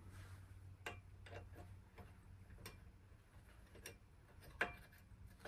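A few faint, scattered metal clicks and ticks from a hex wrench working the tight shell-plate bolt loose on a Dillon RL550B reloading press, the loudest near the end, over a low steady hum.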